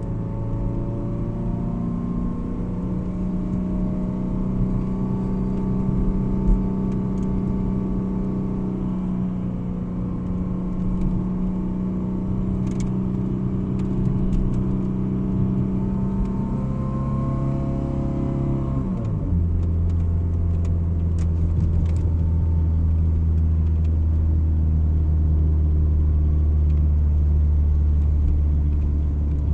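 Car engine heard from inside the cabin while driving, running at a steady note. About two-thirds of the way through, its pitch drops sharply and then holds at a lower, steady hum.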